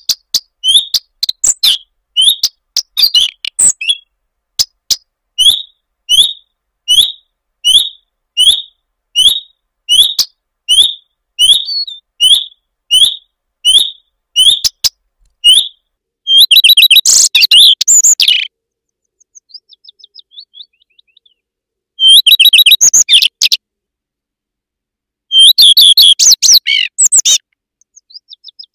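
Common redstart calling: a short, high, upward-hooked note repeated about one and a half times a second for some fifteen seconds. Three brief phrases of song follow, with fainter twittering between them.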